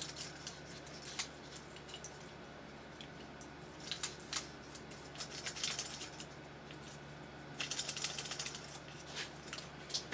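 Faint scattered clicks and small knocks of 3D-printed plastic parts being worked by hand, with a quick run of rapid clicking about eight seconds in: a super-glued foot pin being pried and twisted to break it loose.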